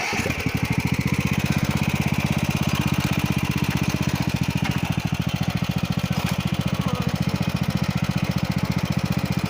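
Riding lawn mower's small engine running steadily with a fast, even pulsing.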